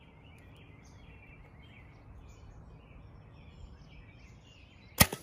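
Birds chirping quietly, then near the end a single sharp, loud snap of a 70 lb Athens Peak 38 compound bow being shot.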